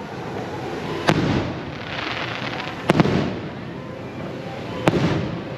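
Fireworks bursting overhead: a sharp bang about a second in, a quick double bang near three seconds and another bang near five seconds, each trailing off in a low rumble, over a continuous crackle and hiss.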